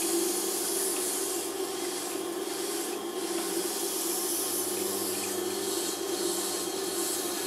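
A wet grinding machine runs with a steady motor hum while a diamond plate is held against its turning wet Japanese waterstone wheel, giving a steady hissing, watery scrape. The stone is being dressed to clear embedded dirt from its surface.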